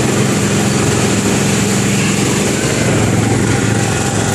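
Small gasoline engine of a go-kart-style theme-park ride car running steadily as the car drives along the track.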